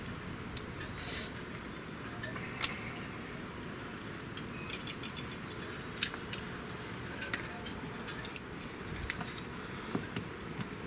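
Scattered single sharp clicks and taps over a steady background hiss; the small clicks near the end come as the transducer cable's plastic plug is pushed against a drilled hole in the fiberglass hull, which is not quite big enough to let it through.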